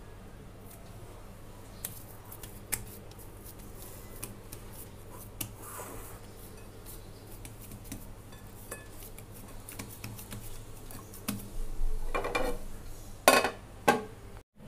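Handling sounds as soft dough is set into a bowl, with scattered light clicks over a faint steady low hum. Near the end come a few louder sharp clacks as a plate is put over the bowl as a lid.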